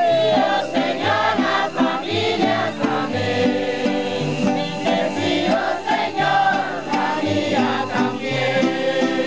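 Acoustic guitars strumming a hymn, with a crowd singing along.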